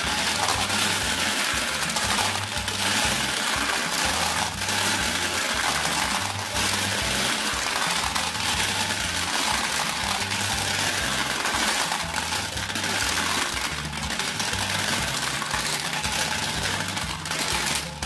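Glass marbles clattering and clinking as they roll down the plastic chute of a Bruder Scania toy cement mixer truck and pile into a toy pickup truck's bed, a steady dense rattle, over background music with a steady bass line.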